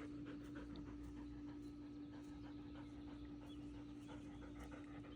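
A dog panting quietly in a quick, even rhythm, with a faint steady hum underneath.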